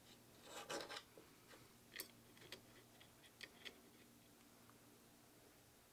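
Faint handling sounds as a steel saw blade is worked into the slot of a wooden bucksaw arm: a short scrape about a second in, then a few light clicks of metal against wood.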